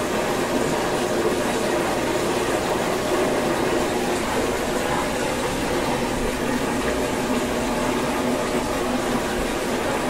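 Aquarium filter running: a steady rush of moving water over a constant pump hum.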